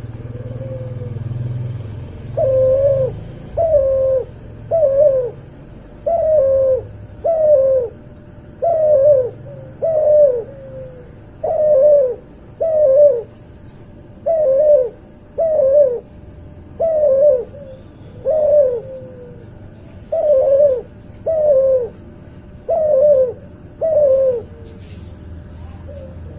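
Cuhu dove, a hybrid of an albino white puter and a puter pelung, cooing in a long, even series of short coos, each dipping in pitch, starting about two seconds in.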